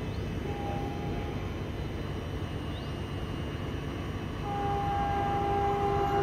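Train horn of an approaching locomotive: a short blast about half a second in, then a long steady blast starting at about four and a half seconds, over a low rumble that grows louder as it nears.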